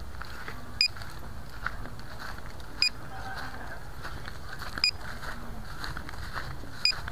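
Short electronic beeps from a small beeper on an FPV quadcopter, one brief chirp about every two seconds, four in all, over a faint steady hiss.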